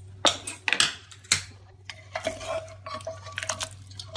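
Ladle clinking against a metal pressure cooker and stirring the thick cooked chickpea curry inside. It starts with a few sharp metallic knocks, then goes on as softer scraping and stirring.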